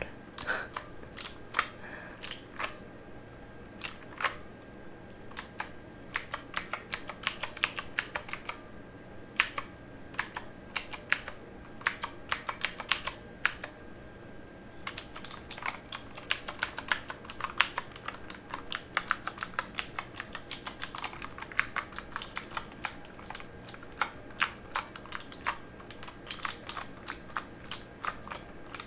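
Typing on a mechanical keyboard: a stream of sharp key clicks, thinning to a few scattered strokes about a third of the way in, then a fast, dense run of keystrokes from about halfway.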